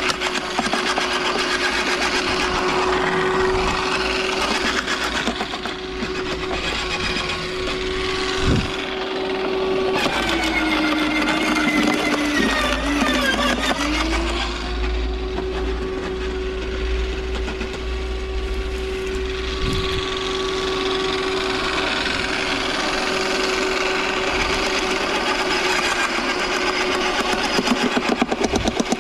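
Electric garden shredder running with a steady hum while branches are fed in and crunched. About ten seconds in, its pitch sags for a few seconds as the motor labours on a branch, then climbs back.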